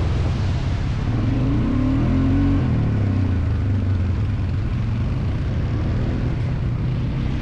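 ATV engine running under way, its pitch rising briefly a second and a half to two and a half seconds in as it revs up.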